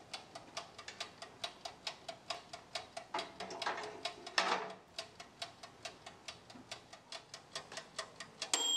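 Mechanical dial timer of a small electric oven ticking evenly, about four ticks a second. The pie tin rattles briefly on the wire rack about three to four seconds in, and near the end the timer rings with a bell-like ding, signalling the baking is done.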